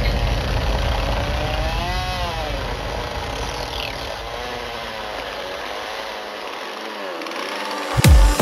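Two-stroke chainsaw running while carving wood, revving up and back down about two seconds in, then easing off and getting quieter. A sudden loud burst comes in near the end.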